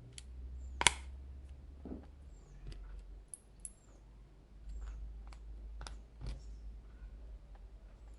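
Scattered small clicks and taps of a hand tool against the plastic clips and circuit board inside a smartphone being pried apart, with one sharper click about a second in.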